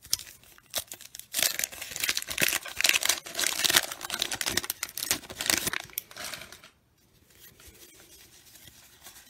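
Paper wrapper of a 1990 Bowman baseball card pack being torn open and crinkled by hand, a run of rips and rustles lasting about six seconds. After that comes quieter handling as the cards are slid out.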